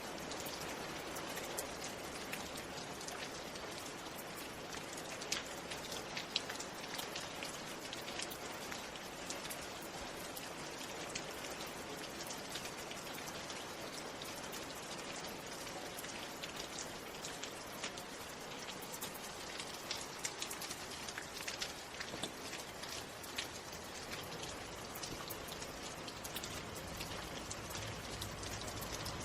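Steady rain falling, an even hiss speckled with many sharp ticks of single drops striking a surface.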